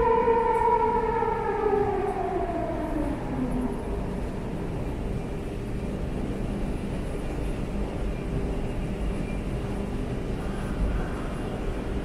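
Hyundai automatic metro train braking into a station, its traction motors whining in a tone that falls steadily in pitch over the first three or four seconds and fades out, leaving the steady rumble of the slowing train.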